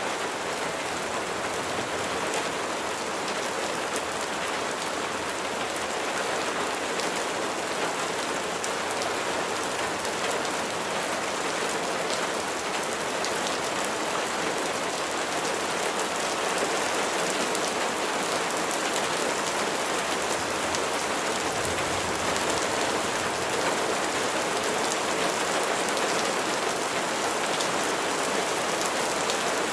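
Steady rain falling on a surface: a continuous even patter of many drops.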